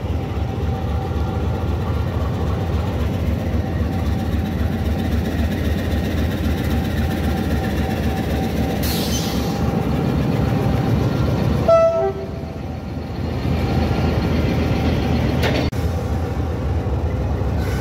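Diesel locomotive running at idle with a steady, throbbing engine note. There is a brief hiss of air about nine seconds in and a short horn toot about twelve seconds in.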